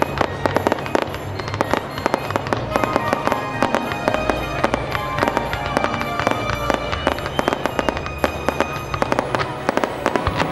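Fireworks going off in a dense, rapid run of sharp cracks and pops as white fountains of sparks shoot up, with music playing underneath.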